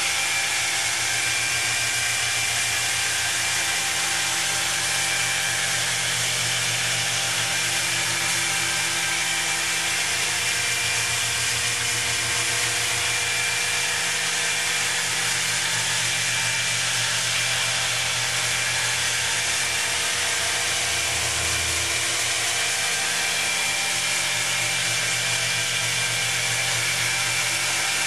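FLEX wet polisher running steadily, its motor holding one even pitch, while the spinning pad grinds across a vertical stone wall.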